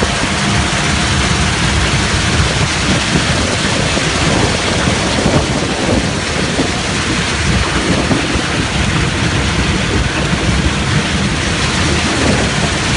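A salt screener and its conveyors running: a loud, steady rushing rumble of the machinery with salt streaming off the belts.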